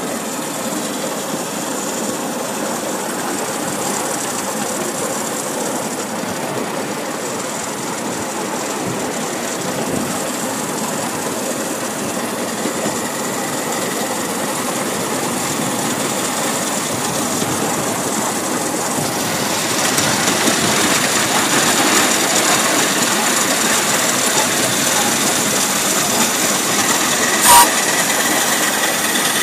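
Miniature live-steam Stafford saddle-tank locomotive running along the track, a steady mechanical running and rail noise that grows louder a little past halfway. A brief sharp sound stands out near the end.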